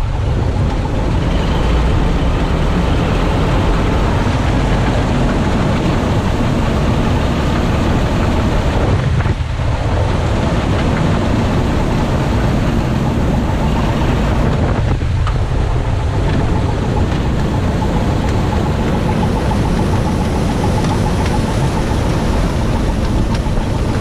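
Massey Ferguson 86 combine harvester running steadily and loudly from the driver's seat, its unloading auger working as grain pours into a trailer.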